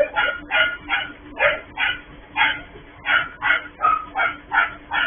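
A dog barking over and over, about two to three short barks a second, over a faint steady hum.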